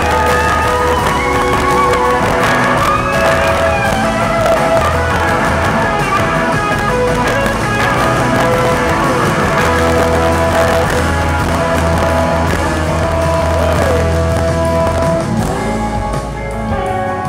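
Live band playing, recorded from the audience: two electric guitars, saxophone and trumpet over bass and drums, with held notes and lines that glide in pitch. Near the end the music thins out.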